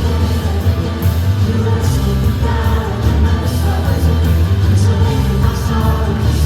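A live worship band playing with singing: sustained bass notes and a drum beat under the voices.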